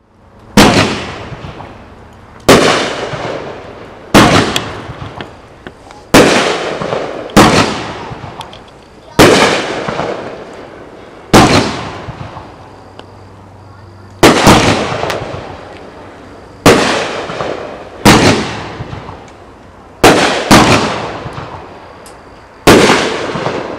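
A Big Fireworks 'Liquid Sunshine' 500-gram, 10-shot consumer firework cake firing: about a dozen sharp bangs, one every second or two, each dying away over a second or so.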